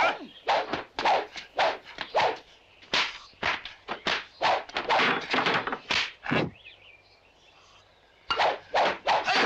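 Rapid stick-fight sound effects from a kung fu film: whacks and thuds of sticks striking, about three a second, breaking off for a second or so near the end before the blows start again.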